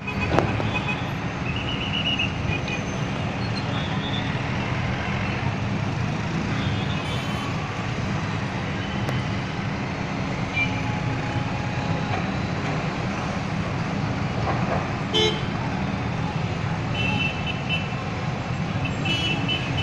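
Heavy-equipment diesel engine running steadily with a low drone, with several short high-pitched tones and a sharp knock or two over it.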